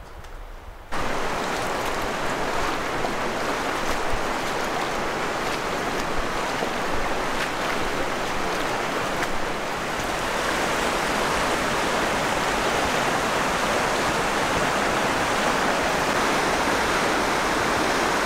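River rapids rushing: a steady wash of whitewater that starts abruptly about a second in.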